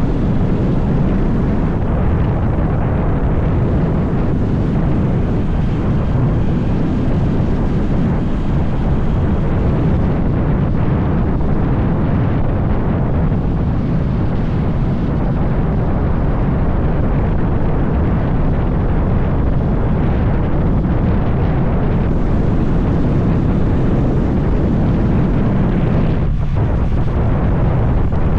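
Heavy wind buffeting on the microphone over vehicle noise while riding: a loud, steady rumble without a break.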